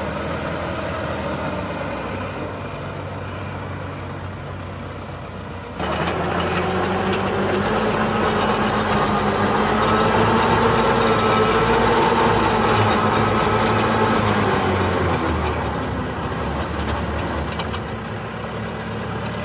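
Massey Ferguson tractor's diesel engine running steadily while driving a twin-auger post-hole digger boring into soil. About six seconds in it suddenly gets louder, and the engine pitch rises a little and then eases back down near the end.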